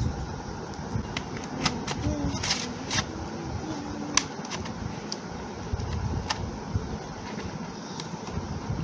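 Scattered light clicks and taps from handling a laptop and small tools, over a steady low background rumble.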